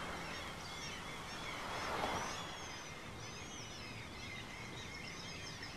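Street ambience: a steady hiss of distant traffic that swells briefly about two seconds in, with small birds chirping repeatedly through the second half.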